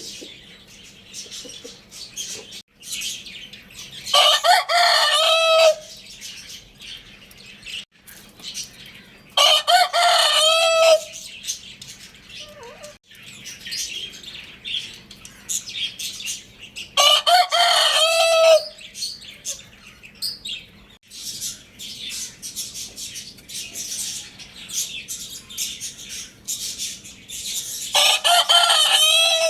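A rooster crowing four times, each crow about a second and a half long and spaced several seconds apart, the last one near the end. Faint chirps and clicks come between the crows.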